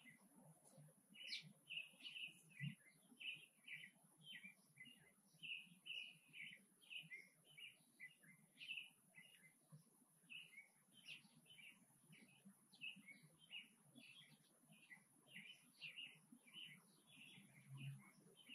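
Small birds chirping: a faint, busy run of short chirps, several a second.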